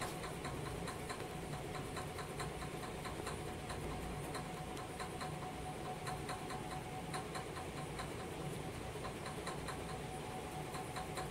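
Batter-coated banana slices deep-frying in hot oil on a high flame: a steady sizzle with frequent irregular crackles and pops, and a faint steady tone underneath.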